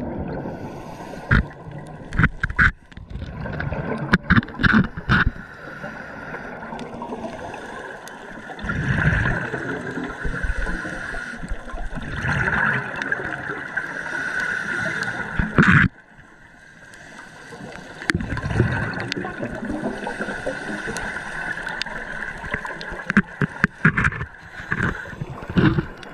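Gurgling water and bubbles heard underwater, with a steady high hum and scattered sharp clicks. There is a short lull about sixteen seconds in.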